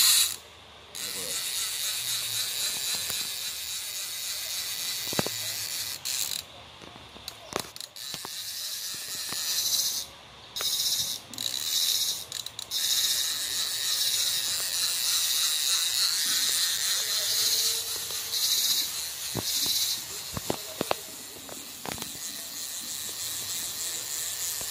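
Fishing reel clicking rapidly in long stretches, a high rattling buzz that breaks off and starts again several times.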